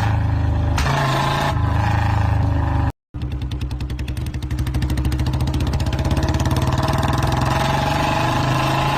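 Royal Enfield motorcycle engine running steadily. It cuts out for an instant about three seconds in, then comes back with a fast, even exhaust beat that gets louder a second or so later.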